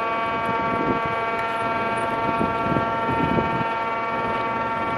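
A steady machine hum made of several fixed tones that never change pitch, with soft, irregular low thumps now and then.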